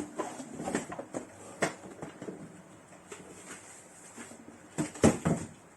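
Cardboard box and packaging being handled and opened: scattered rustles and light knocks, with a louder cluster of knocks a little before the end.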